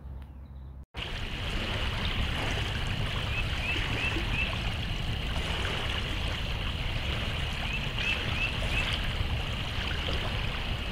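Creek water running steadily, starting abruptly about a second in. A bird gives two short runs of chirps over it.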